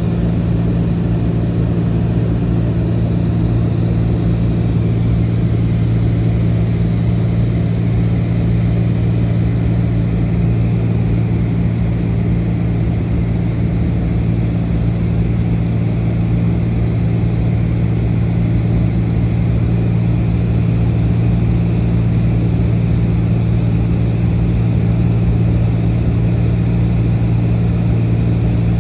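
A small aircraft's engine droning steadily in flight: a constant low hum that holds the same pitch throughout.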